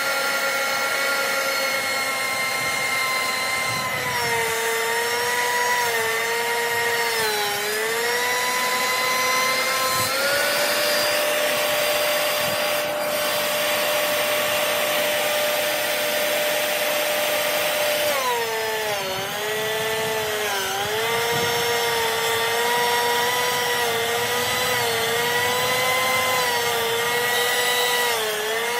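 DeWalt benchtop thickness planer running as wooden posts feed through it. The motor whine sags and wavers in pitch under the cut a few seconds in and again through the second half, and runs higher and steady in between, when the planer is running empty.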